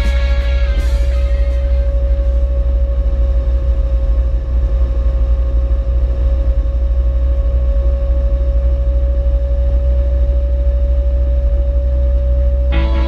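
Ford Escort Mexico driving at a steady cruise: a constant low rumble of engine and road noise with a steady faint whine over it. Rock music fades out in the first second or two and comes back in near the end.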